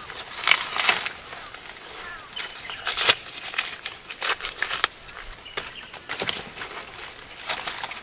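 Dry corn leaves and stalks rustling and crackling in irregular bursts as a person pushes through the plants and handles the ears.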